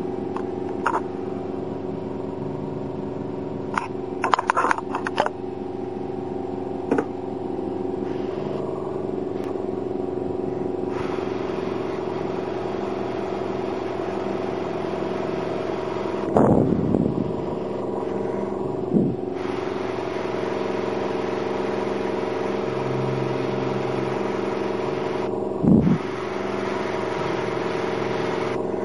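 Airbrush compressor running with a steady hum, broken a few times by short louder bursts of noise.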